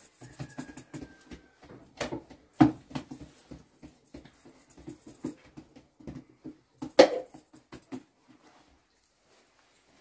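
Flatbread dough being slapped and patted on a cloth bread pad, a run of quick soft taps with a few sharp slaps, the loudest about two seconds and seven seconds in.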